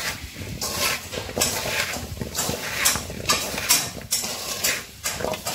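Hands tossing spice-coated paneer cubes and capsicum pieces in a metal pot to marinate them: repeated rustling, scraping strokes of food against the metal, about two or three a second.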